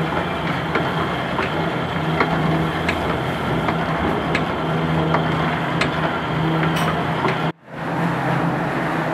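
Tea-rolling machine running steadily, its electric motor humming as the drum presses and turns fresh tea leaves, with scattered light ticks. The sound drops out abruptly for a moment about seven and a half seconds in, then a similar machine noise resumes.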